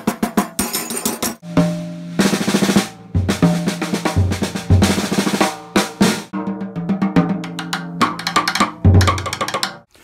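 Drum kit played with sticks: fast snare strokes and rolls on an Evans '56 Calftone snare head, mixed with low drum hits that ring for a moment.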